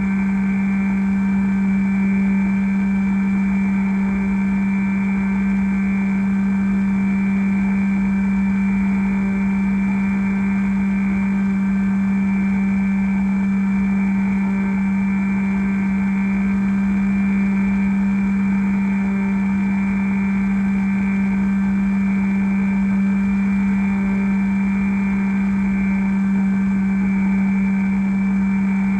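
Electric brushless pusher motor and propeller of a Bixler v1.1 RC foam plane running at steady cruise throttle in flight, picked up by the onboard camera: a loud, unchanging drone at one pitch, with wind rushing over the airframe.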